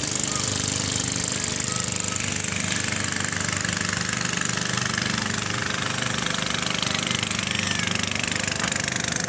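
Small boat engine running steadily at an even speed, with a rapid knocking beat.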